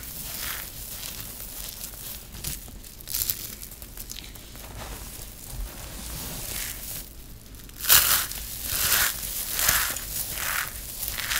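Handfuls of dry grated soap shreds squeezed and crumbled between bare fingers: repeated crisp crunching and rustling, quieter for a while midway and loudest from about eight seconds in.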